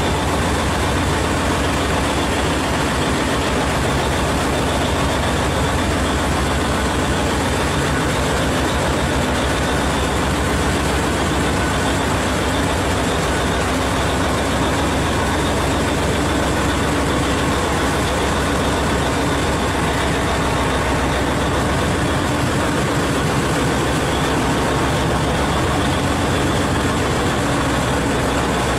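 Heavy mining machinery running steadily: a large haul truck's diesel engine idling while a Cat 7495 electric rope shovel loads it.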